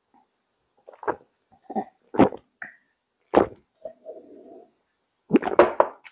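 A person chewing a mouthful of Vietnamese rice paper roll with fresh vegetables and meat: several separate wet smacks and crunches a second or so apart.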